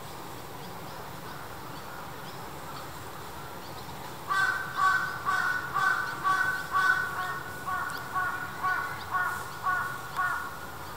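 A crow cawing in a run of about a dozen harsh calls, roughly two a second, starting about four seconds in and stopping shortly before the end, over a steady low background hum.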